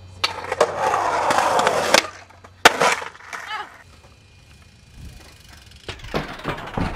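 Skateboard wheels rolling on concrete, then a sharp crack of the board about two seconds in and a louder board impact a moment later, the wheels rolling on briefly after it. A few more sharp board clacks come near the end.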